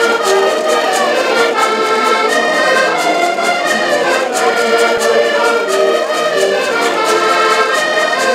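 An ensemble of diatonic button accordions playing a lively traditional Portuguese tune together, sustained reedy chords under a melody with a steady beat.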